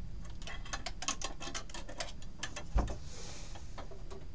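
Small clicks and light clatter of sewing tools being picked through and handled on a table, with one louder knock nearly three seconds in.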